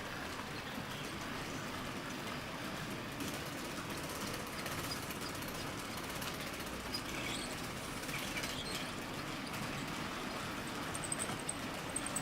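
HO-scale Fleischmann class 50 model locomotive hauling a long train of tank wagons, a steady rolling rumble of wheels on the track.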